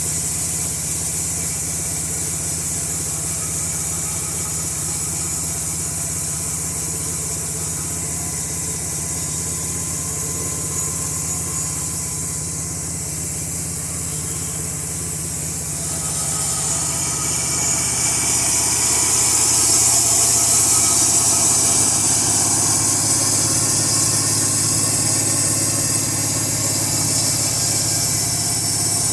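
Petrol engine of a Norwood LM2000 bandsaw mill running steadily. About halfway through it gets louder and a strong high hiss joins in, which fits the band blade cutting through a log.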